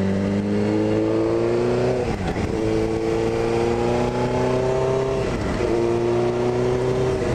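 Suzuki GSX-R600 K1's inline-four engine accelerating through the gears, its pitch climbing steadily and dropping at two upshifts, about two seconds in and again about five and a half seconds in.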